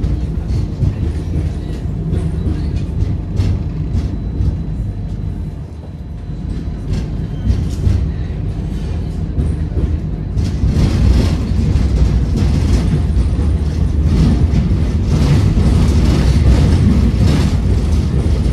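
Tram running along its rails, heard from inside the car: a steady low rumble of wheels and running gear with a few sharp clicks, growing louder and hissier about halfway through.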